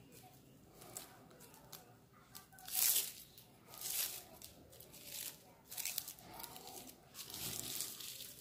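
Blue plastic strips crinkling and rustling as they are twisted into a cord, rolled by hand against bare skin. The rustles come in irregular bursts, the loudest about three seconds in.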